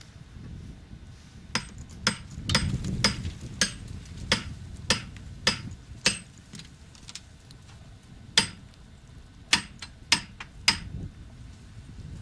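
A series of sharp knocks, about two a second for several seconds, then four more spaced out over the next few seconds, over a low rumble.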